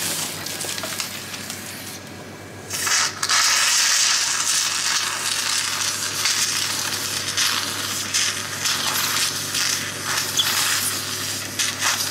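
Electric suction machine humming steadily. From about three seconds in, a suction catheter clears mucus from a child's airway with a loud crackling hiss; the mucus has been loosened by a cough-assist session.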